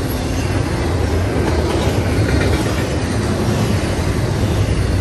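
Double-stack intermodal freight train's loaded well cars rolling past, a steady loud noise of steel wheels running on the rails.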